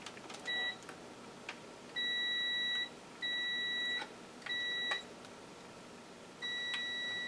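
Digital multimeter's continuity beeper sounding five times as the probes touch points on a monitor circuit board: one short high beep, then four longer ones of up to about a second with short gaps. Each beep marks a closed connection between the probes, here in a check of the board's ground connections.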